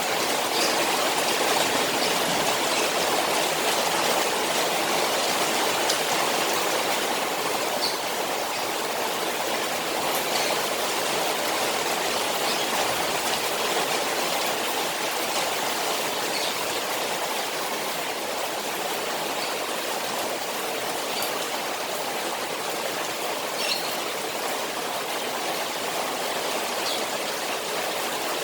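Rain falling on a koi pond: a steady rush of water with scattered small drop splashes.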